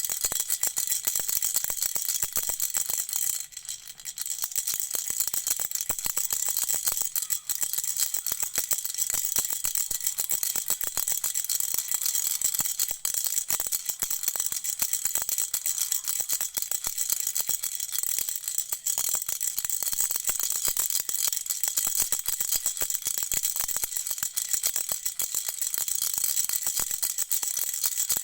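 A rattle shaken continuously, a dense stream of small clicks, with a brief pause about three and a half seconds in.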